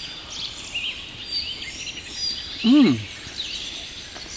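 Songbirds chirping and singing in woodland. About three seconds in, a man hums a short "mmm" with a rise and fall in pitch while eating.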